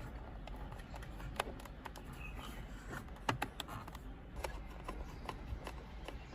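Scattered small clicks and rustles of cables and plastic connectors being handled, over a low steady hum, with the sharpest clicks about a second and a half and three seconds in.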